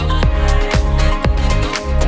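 Background electronic dance music with a steady kick drum about twice a second over a low bass line.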